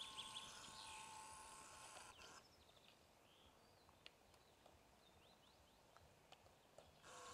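Near silence: faint field ambience with a few distant bird chirps, dropping to almost nothing about two and a half seconds in.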